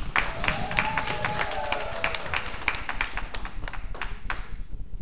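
A small audience clapping, many separate hand claps that thin out and stop shortly before the end.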